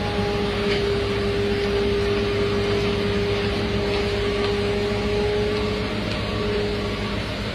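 Asphalt paver running steadily while a dump truck feeds it asphalt: a continuous engine drone with a held, steady tone over it.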